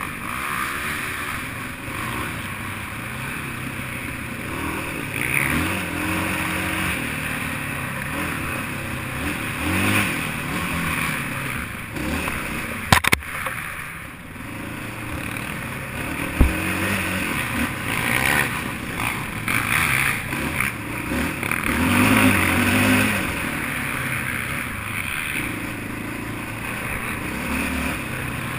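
Racing quad (ATV) engine revving up and down again and again, over a rushing noise, with a couple of sharp knocks about halfway through.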